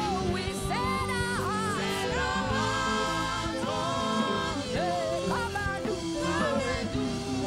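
Live worship music: a woman sings the lead line into a microphone over instrumental accompaniment, with backing singers.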